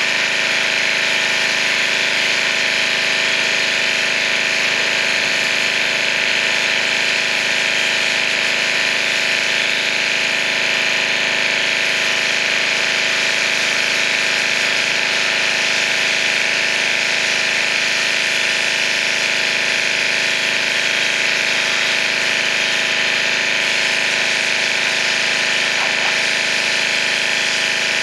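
Pressure washer running steadily: an even motor and pump drone under the hiss of the water jet.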